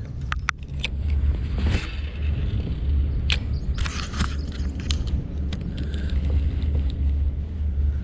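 Handling noise on the camera: sharp clicks and knocks as a hand grips and adjusts the mount, over a steady low rumble.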